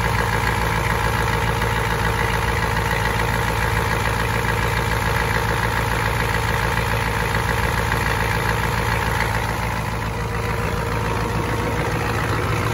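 1993 Ford F-250's 7.3 IDI V8 diesel idling steadily with a dense, even clatter, warming up after a cold start and now settled down.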